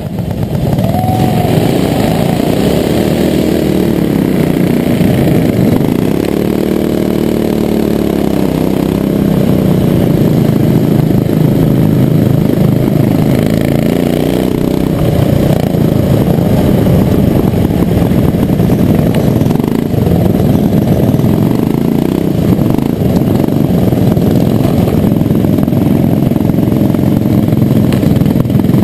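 Racing kart engines at close quarters, heard from onboard a kart at race pace. In the first several seconds the pitch rises and falls repeatedly with throttle, then settles into a dense, steady run at high revs.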